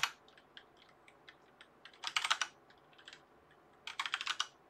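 Typing on a computer keyboard: a loud key click at the start, scattered single keystrokes, and short runs of quick keystrokes about two seconds in and again near the end.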